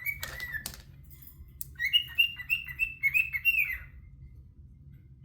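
Pet bird singing: short whistled chirps, a few at first and then a quick run of them lasting about two seconds, a couple of seconds in. A few sharp clicks sound in the first two seconds.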